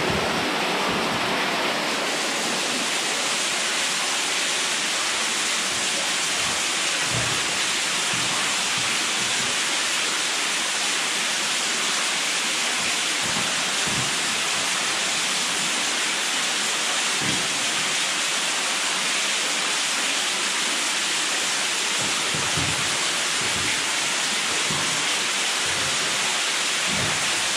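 Steady rushing water noise, an even hiss with no break, with a few soft low knocks now and then.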